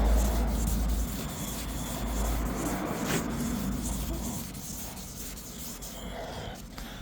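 Wet 2000-grit sandpaper rubbed by hand over a car's painted panel, a steady scratchy rub that is taking out the 1500-grit scratches. A low rumble runs under it and dies away about four seconds in.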